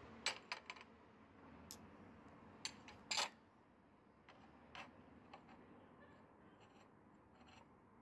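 A scatter of small, sharp clicks and knocks from hard objects being handled: a quick cluster in the first second, the loudest group about three seconds in, then a few fainter ticks.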